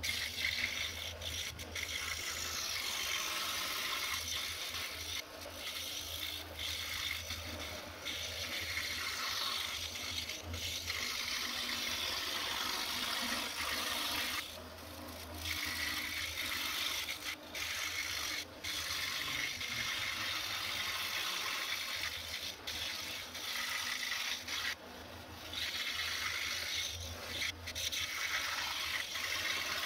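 DeWalt scroll saw blade cutting through a wooden sign blank: a steady rasping over a low hum. The rasping drops away briefly twice.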